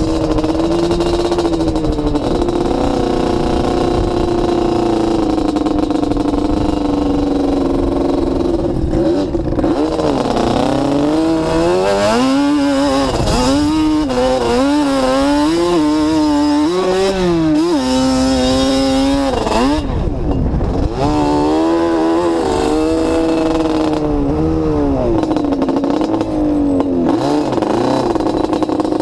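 Sport ATV engine running while riding over sand dunes, heard close up. It holds a steady pitch for the first third, then revs up and down again and again as the throttle opens and closes.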